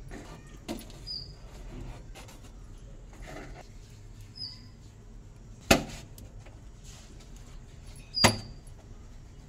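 Cooking at a wood-fired clay chulha: a low steady rumble with scattered small clicks and two loud sharp knocks, the second about two and a half seconds after the first. A few faint short high chirps come now and then.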